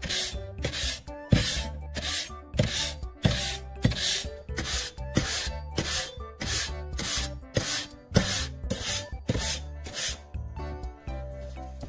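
Steel kitchen knife blade drawn back and forth against sandpaper-wrapped tubes of a homemade sharpener, about two abrasive strokes a second. The strokes stop shortly before the end, while background music plays throughout.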